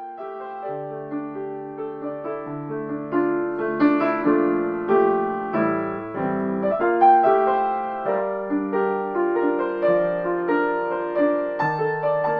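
Solo piano music: a slow piece of held chords under a melody, with a new note or chord about every half second.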